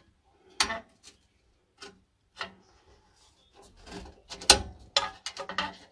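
Metal spring clip clicking and scraping against the boiler's fan housing as it is pushed over the Venturi, with a few separate sharp clicks and then a busier run of clicks and rubbing, loudest about four and a half seconds in. The clip is on the wrong way round and does not sit firm.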